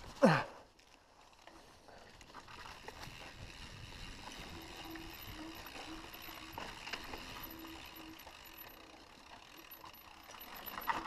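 Mountain bike rolling down a dirt singletrack: a steady rush of tyre noise with small rattles and clicks from the bike. Just after the start comes one loud, brief sound that drops quickly in pitch, and a cluster of clicks and knocks comes near the end.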